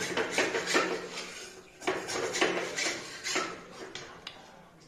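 Spatula scraping and knocking against the inside of a karai (wok) as a rice pancake is loosened and lifted out: a run of short scrapes and clinks that thins out near the end.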